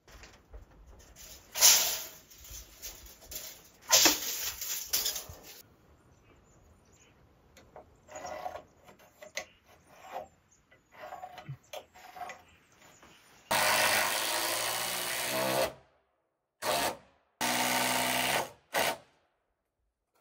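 A cordless drill runs into a timber ledger board on a log wall: one steady run of about two seconds, a short burst, then another run of over a second, with the motor's pitch holding steady. Earlier there are scattered knocks and handling sounds from the wood and tools, two of them sharp and loud.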